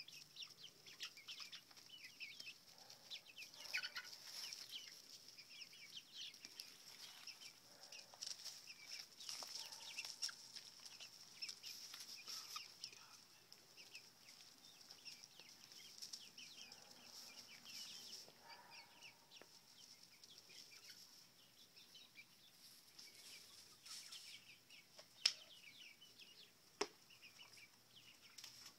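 Seven-week-old chickens peeping and clucking softly and continuously while they peck for treats, many short high calls overlapping. Two sharp clicks near the end.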